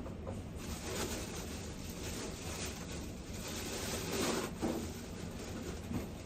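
Soft, irregular rustling and rubbing of paper at a study desk, swelling a little about four seconds in, over a low steady room hum.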